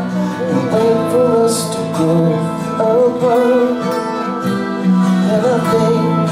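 A live rock band playing: acoustic guitar strummed over electric guitar and drums, with a held melody line wavering in vibrato.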